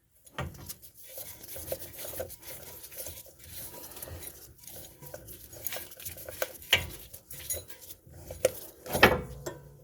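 Metal parts and tools clinking and scraping as a loosened inner tie rod is worked off the steering rack by hand, with irregular small clicks and a few sharper metal knocks near the end.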